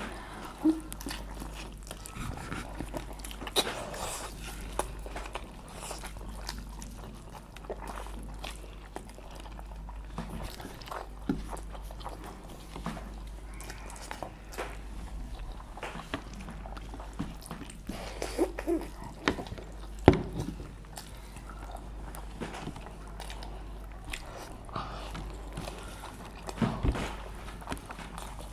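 People eating: chewing with scattered sharp clicks and clinks of utensils on plates, over a steady low hum.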